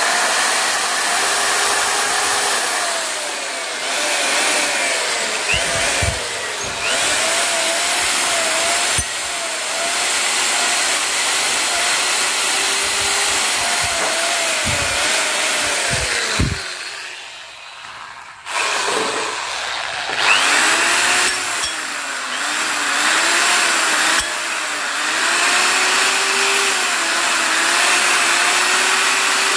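Electric drill spinning a wire cup brush against a motorcycle piston crown, scrubbing off carbon deposits. The motor's pitch repeatedly sags and recovers as the brush is pressed on and eased off. The drill stops for about a second and a half a little past halfway, then starts again.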